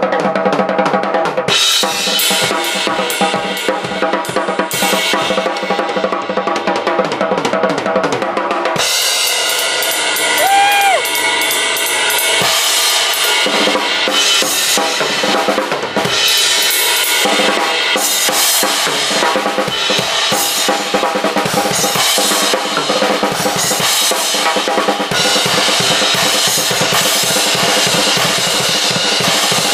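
Live drum kit solo: rapid, dense strikes on snare, bass drum and toms under cymbals ringing on. The low thump thins out for a few seconds about nine seconds in, then comes back.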